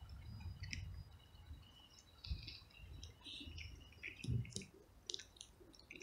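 Cat crunching dry kibble: irregular crisp crunches and clicks over a faint low rumble.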